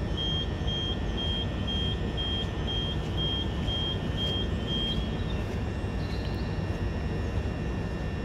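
A stationary electric multiple unit hums at the platform. Over the hum come about a dozen short, high, evenly spaced beeps, about two a second, which stop about five seconds in: the train's door warning beeps.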